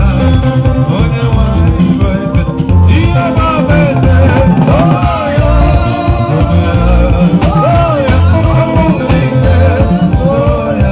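Live gospel praise music: a man sings a lead line into a microphone over a drum kit and keyboard, amplified through a PA, with a steady beat.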